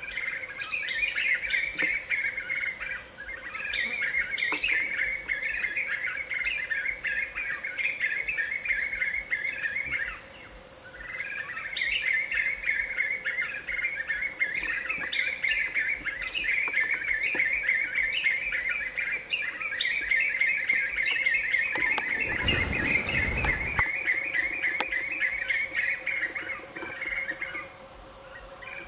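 Black-fronted nunbirds singing together in a group chorus: a dense, rapid run of notes that goes on almost without break, pausing briefly twice.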